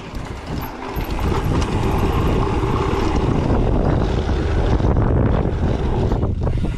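Wind buffeting the microphone while a mountain bike rides a trail, with a low rumble from the bike on the ground; the noise gets louder about a second in and then holds steady.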